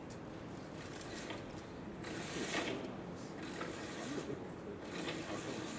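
Camera shutters firing in rapid bursts as several photographers shoot at once; about three bursts of clicking, each under a second, from about two seconds in.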